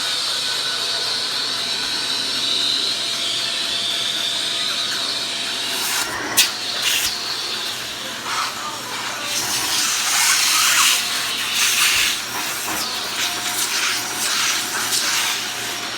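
Vacuum cleaner running with a steady hiss. From about six seconds in the sound turns uneven, with a sharp click and louder surges.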